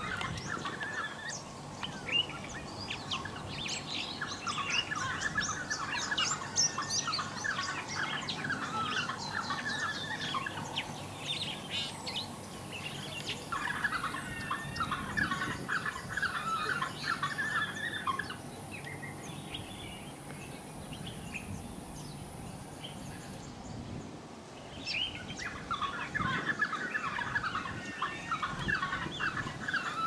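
High chirping and twittering calls, coming in bursts of several seconds with quieter gaps, over a steady high hiss that cuts off suddenly about two-thirds of the way through.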